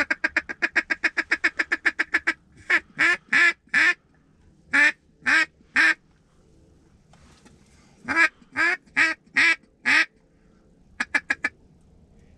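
Loud duck quacks: a fast, even run of about sixteen short quacks, then two groups of three longer quacks, and a quick run of four near the end.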